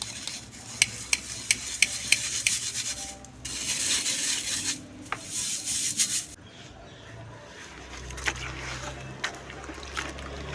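Dry, crumbly lumps being crushed and broken apart. There are several sharp cracks in the first couple of seconds, then a dense gritty crunching for a few seconds, then softer crumbling with a few scattered cracks.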